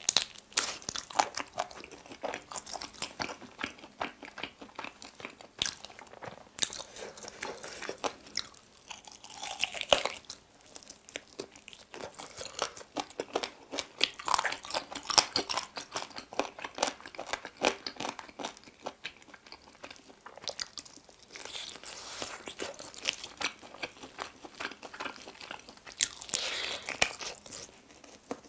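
A person biting into and chewing sauced chicken (Goobne Mala Volcano wings and drumstick), a dense, irregular run of small sharp clicks from the mouth and food.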